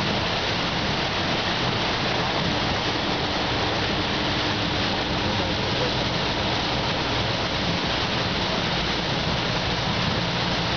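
Steady rush and splash of floodwater pushed aside by a bus driving through a flooded street, over the low hum of the bus's engine.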